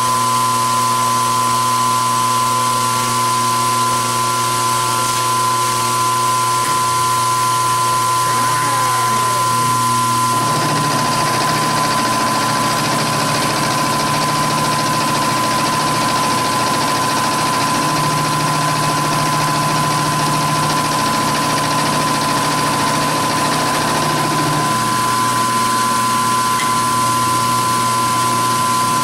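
Milling machine taking a heavy roughing cut in 1144 stressproof steel with a large roughing end mill under flood coolant: a steady run of motor and cutting noise. The lower hum shifts in pitch about ten seconds in and shifts back about twenty-five seconds in.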